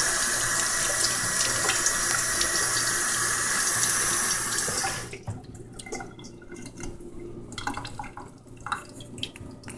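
Kitchen tap running water into a sink steadily, then shut off about five seconds in. Light clinks and knocks of kitchenware follow.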